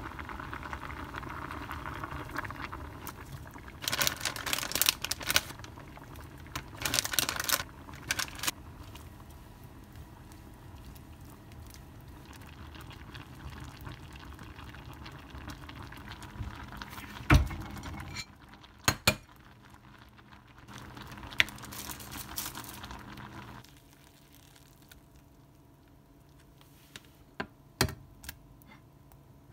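A pot of tteokbokki simmering and bubbling, broken by a few sharp knocks and clinks of utensils. The bubbling cuts off suddenly about two-thirds of the way through, leaving only a few clicks.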